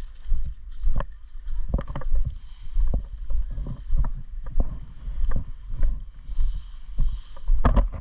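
Footsteps and gear rustling of a player walking, about two steps a second, close to a body-worn camera microphone.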